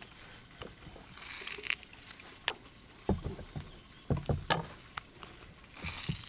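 Red plastic hand-held citrus squeezer being worked over a ceramic bowl: plastic clicks and knocks as the press is opened, loaded with a small citrus fruit and squeezed, with several heavier dull thumps about three and four seconds in. Juice splashes into the bowl as it is pressed.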